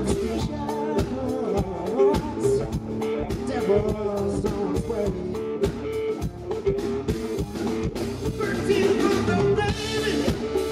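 Live blues-rock band playing: lap steel guitar with sliding notes over electric bass and a steady drum beat.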